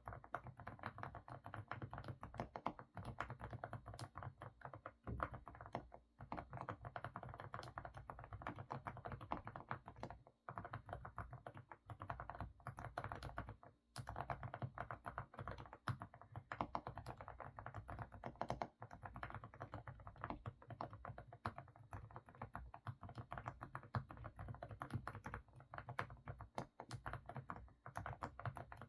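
Continuous fast typing on an AK68 mechanical keyboard with semi-silent Didimdol (stepping stone) switches: dense, full, muffled keystrokes likened to a stew bubbling, broken by a few brief pauses.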